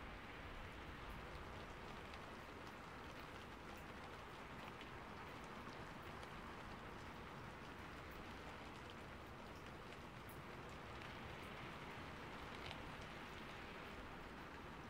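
Steady light rain falling: a soft even hiss with faint scattered drip ticks.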